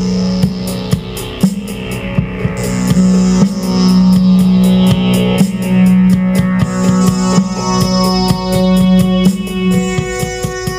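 Intro music: guitar and synthesizer over a steady drum beat.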